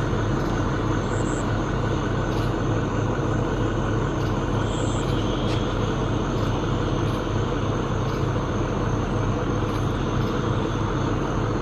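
Pickup truck engine idling steadily, a low even rumble under a constant hiss.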